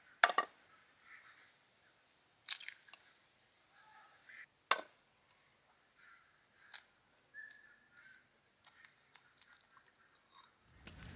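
Eggs being tapped and cracked on a metal frying pan: a few sharp clicks, the loudest just after the start, others about two and a half and five seconds in, followed by softer ticks as the shells are opened.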